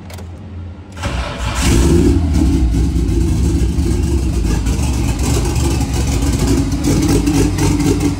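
Nissan RB25DET turbocharged inline-six starting up about a second in and settling into a loud, steady idle. This is the first start after the engine swap, with no exhaust fitted yet.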